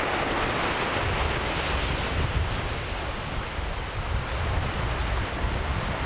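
Ocean surf breaking steadily on a beach, with gusts of wind rumbling on the microphone.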